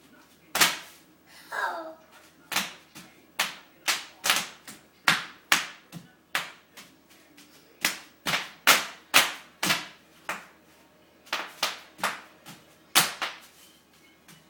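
Bubble wrap popping under a toddler's feet: sharp single pops, about two a second at an uneven pace.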